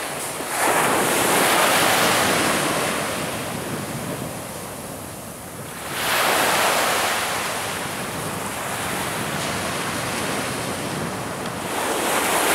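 Ocean surf breaking and washing up a sandy beach: a steady rushing that swells loudest about a second in and again about halfway through.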